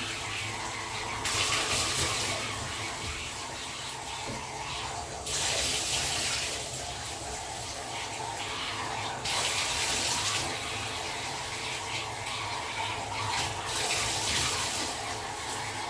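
Tap water running steadily during a dog's bath. Four times it gets louder for a second or two, as the stream splashes harder.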